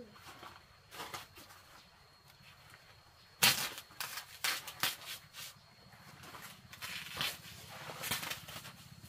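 A small shovel scraping and scooping loose, dry earth in a series of short strokes, the loudest about three and a half seconds in.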